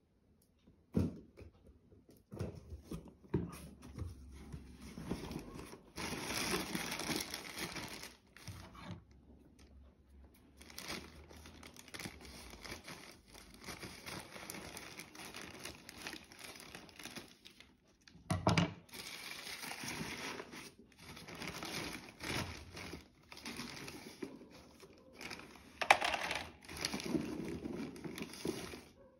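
A plastic bag of charcoal briquettes inside a cardboard box crinkling and rustling as it is handled and cut open with scissors. The rustling comes and goes in irregular stretches, with a few sharp knocks.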